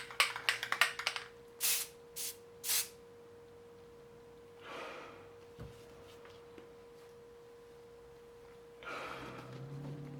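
Olympia Splendid 33 manual typewriter being typed on: a quick run of key strikes in the first second, then three louder, separate strokes. A faint steady hum runs underneath, and music comes in near the end.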